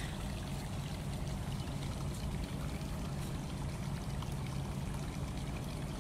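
Steady running, pouring water with a faint low hum underneath.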